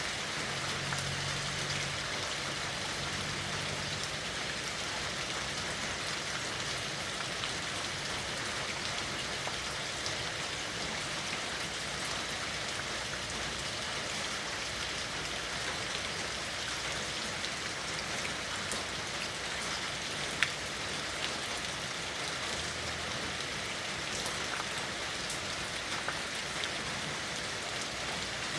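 Steady rain falling, an even patter with scattered individual drop ticks and one sharper drip about two-thirds of the way through.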